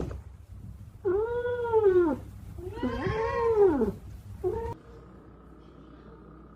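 A cat gives two long, drawn-out meows, each rising then falling in pitch, then a short third meow.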